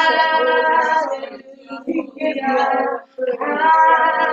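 Sung worship: a single voice singing a slow praise refrain in long held notes. The first note is held just over a second, and the second starts about three seconds in.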